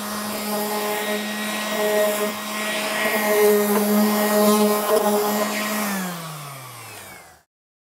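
Random orbital sander running steadily against a painted cabinet door, a quick scuff-sanding pass. About six seconds in it is switched off and its pitch falls as it winds down.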